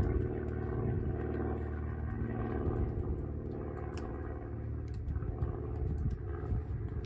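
A steady low engine drone that holds level throughout, with a few faint clicks over it, one about four seconds in.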